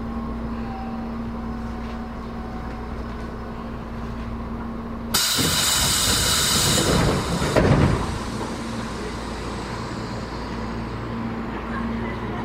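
Tobu 10030 series electric train standing at a station, heard from inside the car: a steady hum, then about five seconds in a sudden loud hiss of released compressed air for about two and a half seconds, ending with a thump.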